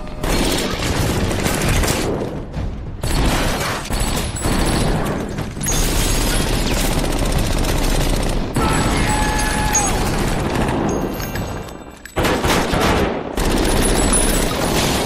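Film shootout: long rapid volleys of automatic gunfire, shot after shot, broken by a few short lulls.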